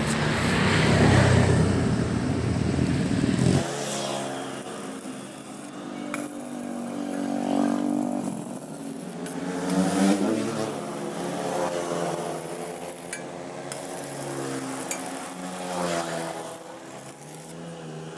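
Motor vehicle engines, rising and falling in pitch several times as they rev and pass, with a heavy low rumble in the first few seconds.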